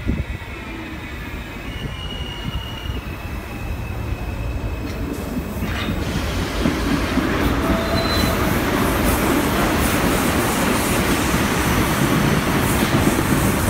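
Preserved vintage New York City Subway train approaching and running past, its rumble building steadily from about four seconds in and staying loud, with thin high wheel squeals.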